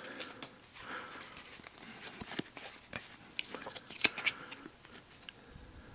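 Game cards being handled and flipped through by hand: soft rustles and a scattering of light clicks and snaps as the cards slide and tap against each other.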